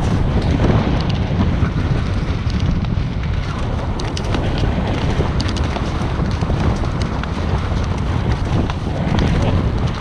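Wind buffeting an action camera's microphone: a loud, steady low rumble with scattered crackles.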